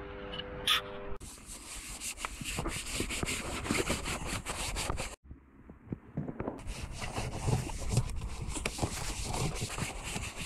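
Wash mitt scrubbing over the foam-covered plastic body panels of a Can-Am Maverick X3: a wet, scratchy rubbing in quick back-and-forth strokes. It breaks off for about a second a little after the middle, then goes on. A steady hum with a click fills the first second.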